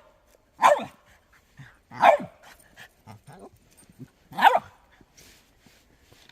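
American Staffordshire terrier 'talking': three short, loud, yowling bark-like calls whose pitch bends, spaced a second or two apart.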